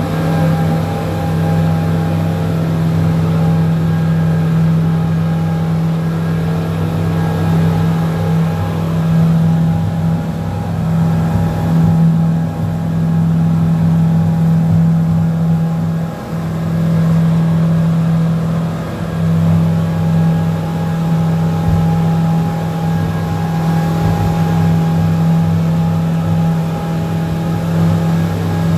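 Passenger speedboat's engines running steadily under way, heard from inside the enclosed cabin as a constant low drone, with a couple of brief dips in level midway.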